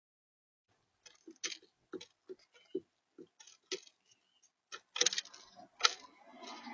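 Irregular sharp taps and clicks on a bird feeder, heard close on the feeder camera's microphone, as a visitor pecks and scrabbles at the seed. They start about a second in, grow louder near the end, and give way to a brief rustle.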